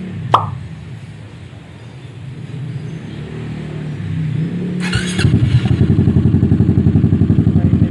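A sharp click, then a low rumble, then a Kymco Xciting S400 scooter's single-cylinder engine starting about five seconds in. It settles into a loud, deep, evenly pulsing idle through the aftermarket muffler being sound-checked.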